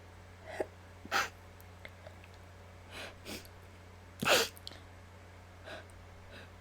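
A person's short breaths and sniffs while working up to a sneeze, with one louder, sharp burst of breath about four seconds in.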